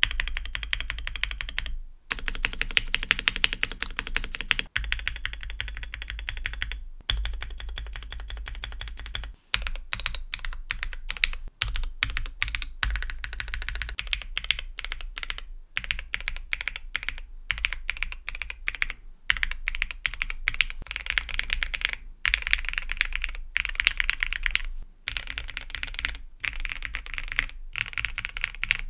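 Fast, continuous typing on an Akko ACR75 V2 mechanical keyboard: lubed Milky Yellow linear switches on a polycarbonate plate in a stacked acrylic gasket-mount case, with SAL ABS keycaps. The key clicks come in a dense run, broken by a few short pauses, over a faint steady low hum.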